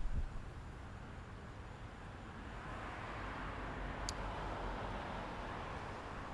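A car passing by, its tyre and road noise swelling to a peak about halfway through and then fading, with a couple of low thumps at the start and a single sharp click just after the middle.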